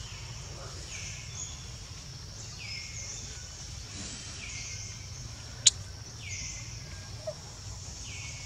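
Forest background sound: a high call repeating about once a second over a steady low hum, with one sharp click a little past halfway.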